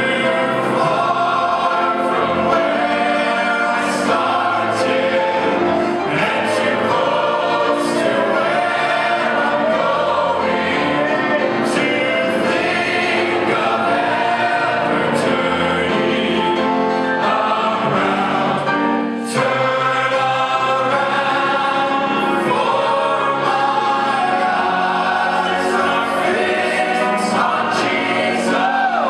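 Mixed gospel choir singing in full harmony, with male soloists singing lead into handheld microphones.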